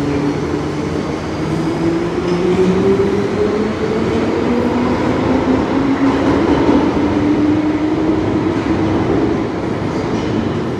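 London Underground tube train pulling out and accelerating away into the tunnel. A whine rises steadily in pitch over the rumble of wheels on rail, and the sound dies away near the end as the train disappears.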